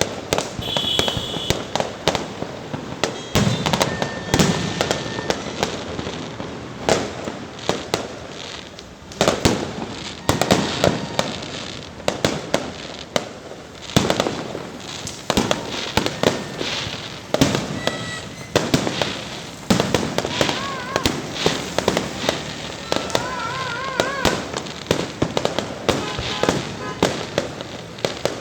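Fireworks display: a dense, continuous barrage of shell bursts and crackling, with wavering whistling tones in the second half.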